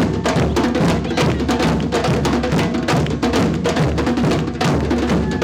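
Samba drum band playing a funk groove: bass drums, snare drums and a sharp wood-block-like clack in a dense, steady rhythm.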